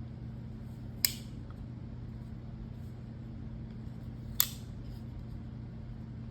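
Two sharp metallic clicks about three seconds apart from a Buck 112 Slim Ranger lockback folding knife as its blade is worked and locks. The knife is brand new, with an action still a little sticky. A steady low hum runs underneath.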